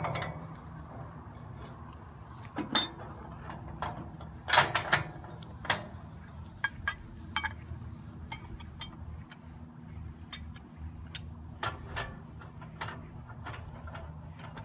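Steel parts of a target plate rack clinking and clanking as they are handled and fitted together: scattered sharp metal knocks, the loudest about three and five seconds in.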